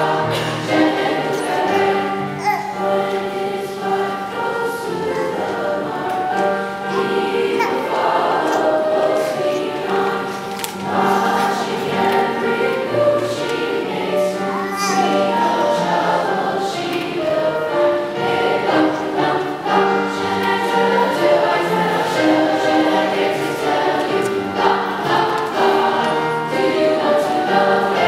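Mixed choir of teenage voices singing a song together, with piano accompaniment.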